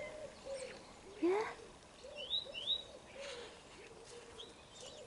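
Chickens clucking softly in short, repeated low notes, with a small wild bird giving a pair of quick rising chirps over them about halfway through.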